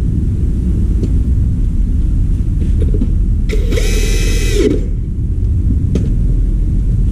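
Cordless drill-driver spinning briefly on a screw in an air conditioner's plastic housing, its motor whine rising and then winding down over about a second, about halfway through. A steady low rumble runs underneath, with a couple of light knocks.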